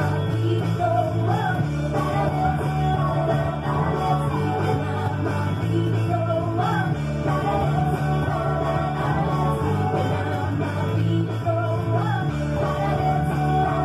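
Rock song with a singing voice playing throughout, with an electric bass played along to it, its low notes heavy under the mix.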